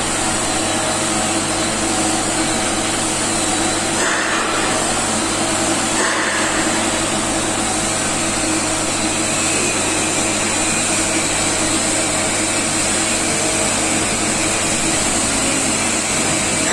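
TIG (argon) welding on stainless steel: a steady hiss over a constant mains-like hum, with no breaks, as the weld runs in the horizontal position.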